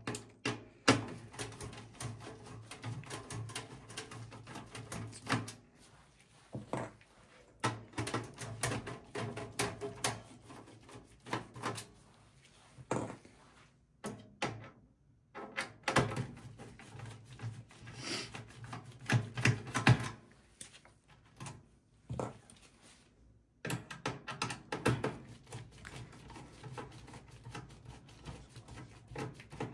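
Screwdriver backing out motherboard screws from a desktop PC's steel chassis: runs of clicking and scraping, several seconds each, with short pauses between them.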